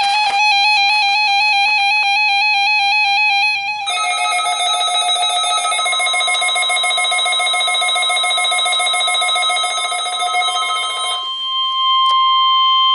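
Weather radio warning alarm test. An electronic alarm warbles between two pitches for the first few seconds, then changes to a busier, rapidly repeating multi-tone pattern. About six seconds in, the steady single-pitch 1050 Hz warning alarm tone joins it, and the tone carries on alone once the other alarm stops near eleven seconds.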